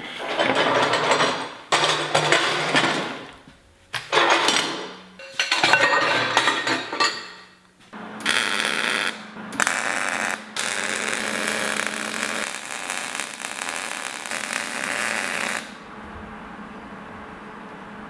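MIG welder arc welding a cap onto steel pipe: several short welds one after another, then longer runs from about eight seconds in, the longest lasting about five seconds, each a steady hiss that stops abruptly when the trigger is released.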